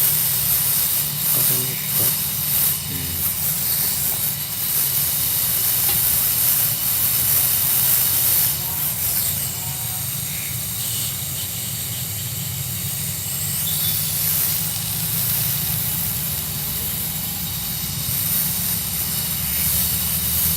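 Gas welding torch flame hissing steadily while aluminium filler is welded onto the punctured refrigerator part.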